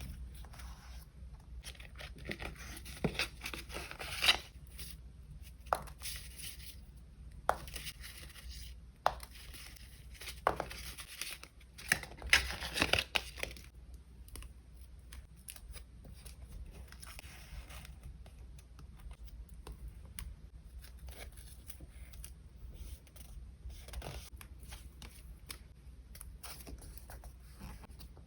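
Paper collage materials being handled, torn and cut: irregular crisp rustles and sharp snips, with louder bursts about three to four seconds in and again around twelve to thirteen seconds in.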